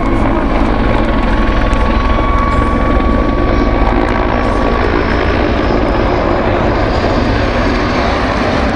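Mil Mi-26T2 heavy-lift helicopter flying overhead: the steady, deep noise of its eight-blade main rotor and twin turboshaft engines, with a thin whine that fades out about halfway through.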